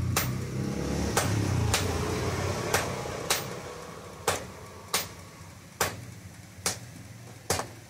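Blacksmith's hammer striking hot iron on the anvil at a steady pace, about ten sharp strikes roughly 0.7 seconds apart. A low rumble underneath fades away over the first half.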